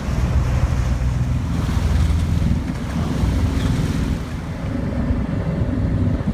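Steady wind buffeting the microphone aboard a small sailboat under way, a continuous low rumble with water noise beneath it.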